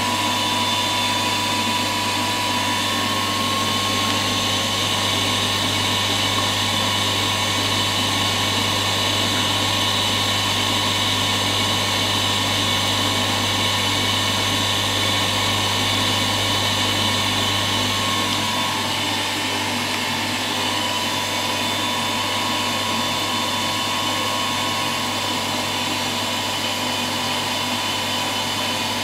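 A small electric motor running steadily, a continuous whirring hum with a few steady tones in it. It shifts slightly and gets a little quieter about two-thirds of the way through.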